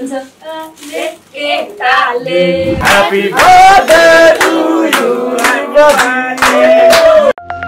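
A group of people singing together to rhythmic hand clapping. The singing ends on a long held note just before a sudden cut.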